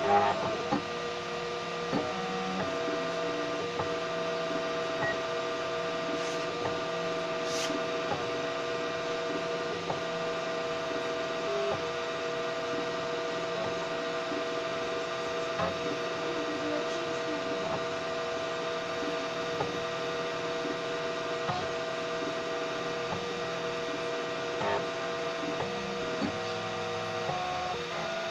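Homemade 3D printer running as it prints slowly in PLA: a steady hum of several held tones, with small ticks here and there as the head moves.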